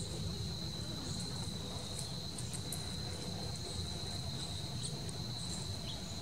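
Crickets trilling in a steady, unbroken high drone, with a low rumble underneath and a few faint high ticks.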